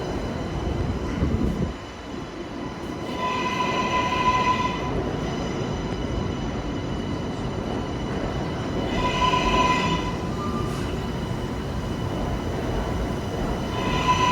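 New York City subway L train of R143/R160 cars rumbling at the station. A high, ringing squeal with several overtones comes back about every five seconds, each time for about a second and a half.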